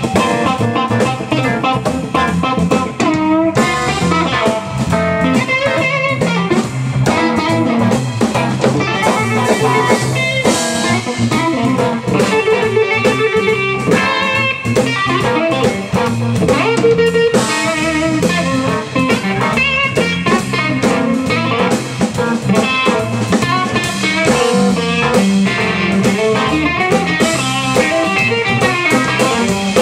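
Live electric blues band: electric guitar lines played fast over a drum kit and bass, continuous throughout.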